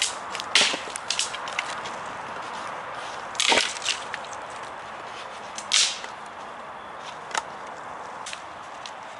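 Dead sticks cracking and snapping as they are levered one-handed in the fork of a tree. A series of sharp wooden cracks, the loudest about three and a half seconds in and again near six seconds, with lighter snaps and crackles of twigs between.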